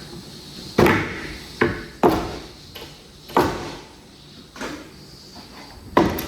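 A series of about six heavy, irregular bangs, each with a short ringing tail, the loudest about a second in, two seconds in and near the end. A faint steady high whine runs underneath.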